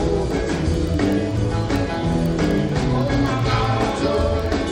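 Background music: an upbeat rock-and-roll song with guitar over a steady beat.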